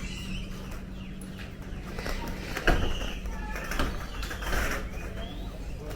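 Assorted birds calling and chirping over a steady low hum, with one sharp knock a little under three seconds in.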